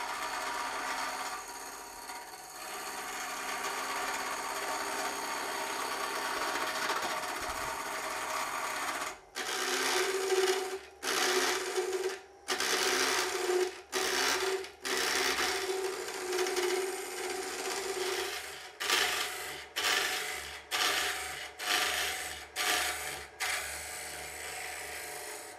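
Wood lathe spinning a blank while a tungsten carbide square cutter on a Robert Sorby Turnmaster shears off shavings, turning the blank down to round. The cutting runs steadily at first, then from about nine seconds in comes in a string of roughly one-second stretches broken by brief silences.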